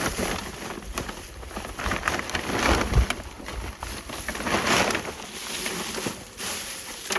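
Old weeds and rubbish rustling and tumbling as a wheelbarrow is emptied, in repeated swells, with a thump about three seconds in.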